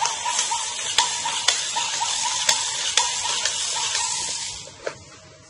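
Voice-controlled robot dog toy answering a spoken command: a hissing electronic sound effect from its small speaker, with sharp ticks about twice a second, cutting off near the end.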